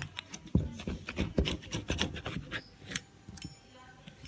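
A pizza-cutter wheel scraping along a metal ruler as it cuts through a stack of thin, half-cooked dough sheets. It makes a quick run of rasping strokes and clicks, which thin out after about three seconds.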